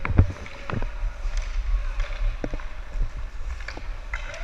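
Sounds of hockey play on an ice rink: a cluster of sharp clacks of sticks and puck in the first second, then a few more scattered clacks over a steady low rumble on the microphone.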